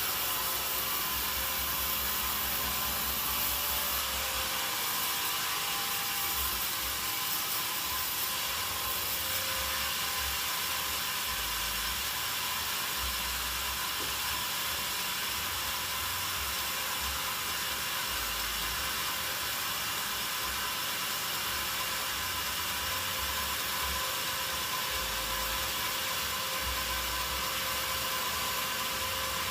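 Sawmill machinery running steadily, with a constant hum carrying a couple of steady tones.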